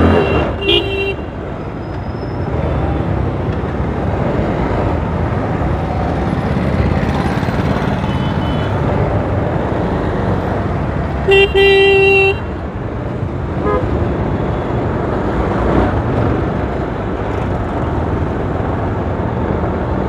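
Steady wind, road and engine noise of a motorcycle on the move. A vehicle horn toots briefly just after the start, sounds louder for about a second around the middle, and gives a faint short toot soon after.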